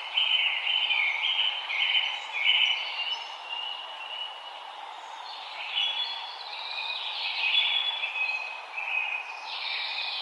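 Forest songbirds singing in quick, repeated short phrases over a steady background hiss.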